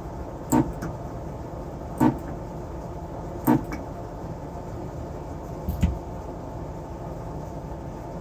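Four short, sharp knocks or clicks of small tools and parts handled on a workbench during battery-pack soldering work, spaced about one and a half to two seconds apart. A steady hum runs underneath.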